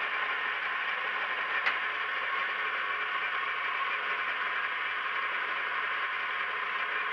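Kenwood stand mixer running steadily, its motor whirring as it kneads stiff bread dough in a steel bowl, with one brief click about a second and a half in.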